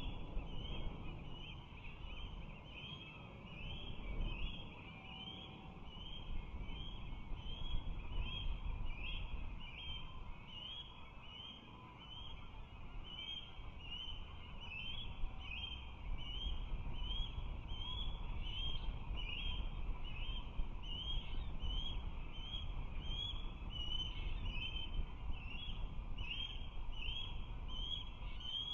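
Osprey calling: a steady series of short, high chirps, about one or two a second, over a low rumble.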